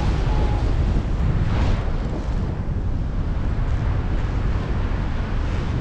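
Strong airflow buffeting the camera's microphone on a paraglider in flight at about 50 km/h: a loud, steady rumbling rush of wind noise.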